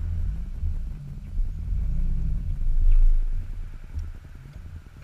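Off-road SUV driving over beach sand and gravel, heard from a camera mounted outside the driver's door: a low, uneven rumble of engine, tyres and wind that swells and dips.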